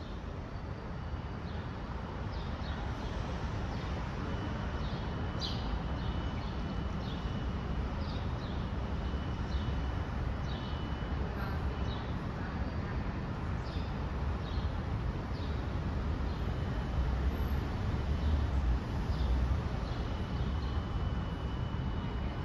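A low, distant vehicle rumble growing slowly louder as it approaches, with small birds chirping over it about once a second.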